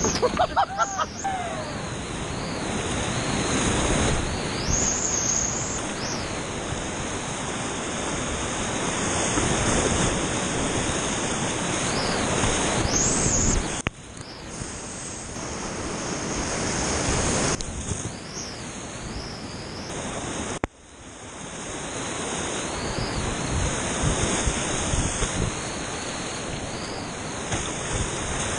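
Whitewater rapids rushing and crashing around a kayak, heard close up from a kayaker's head-mounted action camera. Twice, about halfway and about two-thirds through, the rush cuts out suddenly to a muffled hush and then builds back up.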